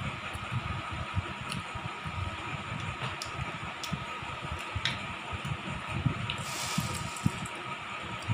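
Muri chanachur (puffed rice with savoury mix) being picked by hand from a steel bowl and chewed, with irregular soft thuds and a few sharp light clicks, over a steady hum.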